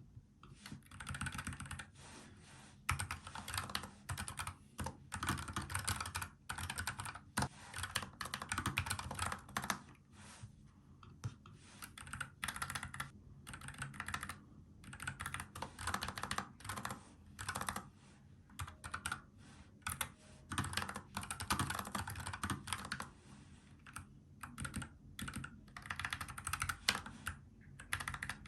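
Typing on a NuPhy Air75 low-profile mechanical keyboard with brown tactile switches: continuous runs of key clicks in bursts, with short pauses between them.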